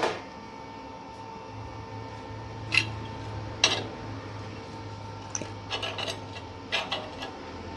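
Spanner clinking against the nut and stainless steel ball ornament on a steel plate: scattered sharp metallic clicks and taps, a few of them close together about two-thirds of the way in, over a low steady hum.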